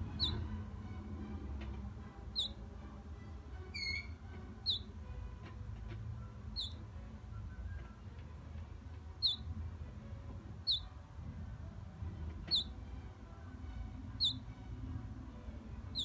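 Three-week-old American Singer canary fledglings peeping: about nine short, high, slightly falling peeps spaced every couple of seconds, with one lower, wavering call about four seconds in, over a low steady rumble.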